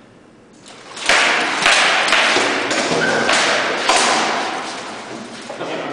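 Rattan swords striking shields and armour in a quick flurry of hits, with the rattle and clatter of the fighters' armour as they close and clinch, starting about a second in.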